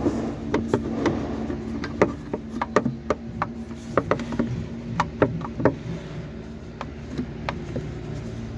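Irregular sharp clicks and knocks as an air-intake hose and its wire are handled and pushed back onto the fitting, over a steady low hum.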